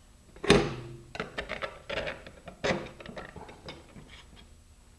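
Hand handling of fiberglass rocket tube parts on a workbench: a hollow knock with a short ring about half a second in, then a series of irregular lighter clicks and taps as the pieces are moved and fitted.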